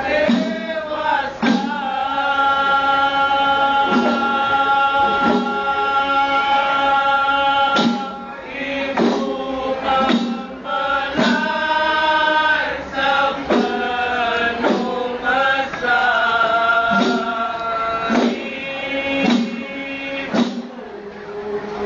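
A hadrah group of men singing a chant together in long held notes, with kompang frame drums struck in unison roughly once a second.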